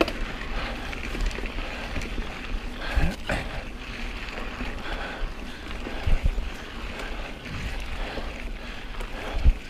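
Wind rushing over the microphone and mountain bike tyres rolling fast over a dirt singletrack, with the bike knocking and rattling over bumps. The biggest knock comes near the end.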